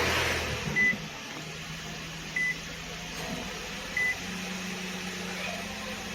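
Car engine idling just after being started, with a short high warning chime from the car beeping three times, about a second and a half apart.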